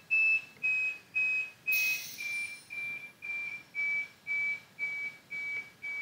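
Vela ventilator's audible alarm tone beeping about twice a second, a single high pitch per beep, getting quieter as the Alarm Loudness setting is turned down from 6 to 2 with the encoder knob.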